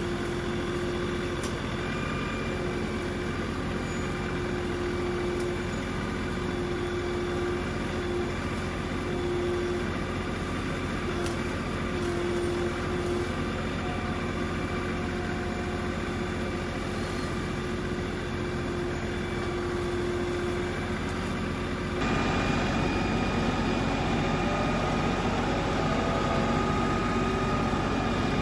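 Diesel engine of an LS XR3135 compact tractor running steadily with a grapple loader on the front. It gets louder about three-quarters of the way through.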